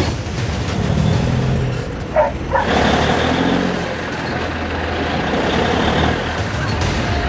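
Heavy truck's diesel engine working hard under load as it tries to pull the bogged trailers free. From about a third of the way in, a rushing, churning noise joins it as the drive tyres spin in the wet sand without getting traction.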